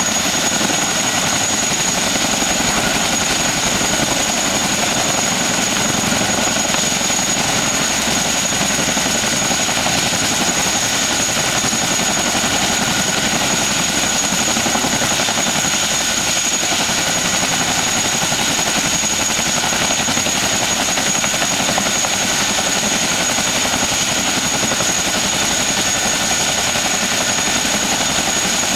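HVAC unit running steadily: a constant loud rush of fan and machinery noise with a steady high-pitched whine running through it.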